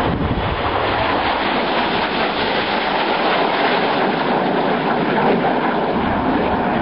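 Jet aircraft engine noise in flight: a loud, steady rushing noise with no distinct tones.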